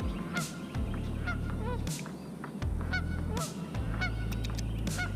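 A flock of geese honking over and over in the distance, many short calls overlapping, over a low steady rumble that drops out briefly a few times.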